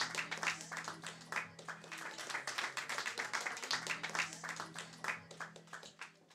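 A small crowd clapping and applauding, irregular and dense, over a steady low hum, fading out near the end.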